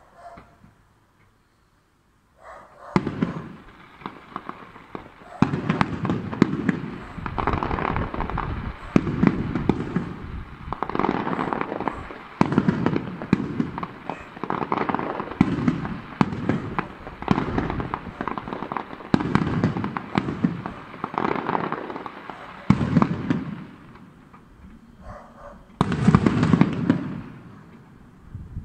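Aerial firework shells bursting one after another, booms mixed with crackling, every second or two. They start about three seconds in after a brief near-silent gap.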